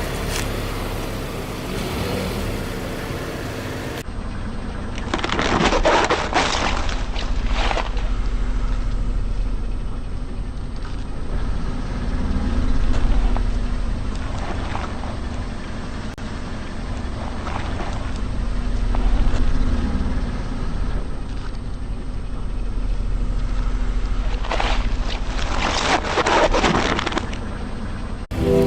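A car rolling slowly with a steady low rumble, its tyres crushing objects with bursts of crackling and crunching about six seconds in and again near the end.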